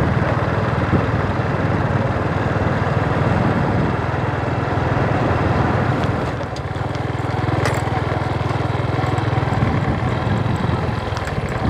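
A vehicle engine running steadily, with wind rush as it travels along. The low hum becomes a little more even about halfway through.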